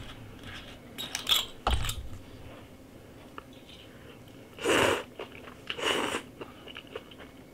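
Close-up eating sounds: quiet chewing and small clicks, then two loud slurps of soup from a bowl, a little past the middle and again about a second later.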